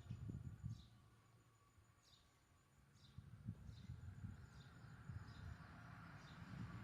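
Faint bird chirps: short, high, falling notes repeated about once a second, over a low rumble.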